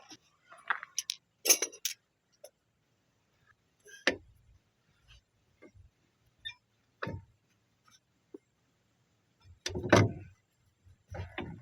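Hand tools and metal parts being handled: scattered metal clinks and knocks a few seconds apart, with a louder cluster of knocks near the end.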